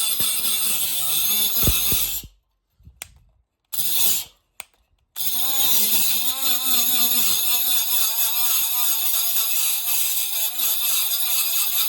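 Mini 12-volt cordless angle grinder cutting through thick steel tube with a high grinding whine. It stops about two seconds in, and after a few light knocks it starts again about five seconds in, its pitch wavering as it struggles: the small disc is wobbling in the cut and grinding over the same spot, because the pipe is too thick for such a small grinder.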